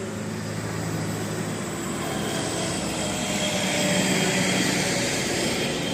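Bus engine running with steady road noise, swelling slightly about four seconds in.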